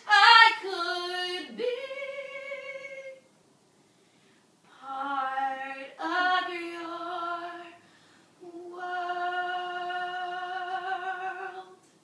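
A woman singing, unaccompanied, in three phrases of long held notes with short pauses between, the last note held steady for about three seconds before it stops near the end.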